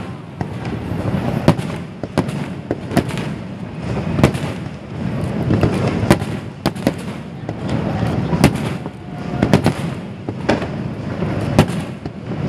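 Aerial firework shells bursting, sharp bangs about every second at uneven intervals, over a continuous low rumble.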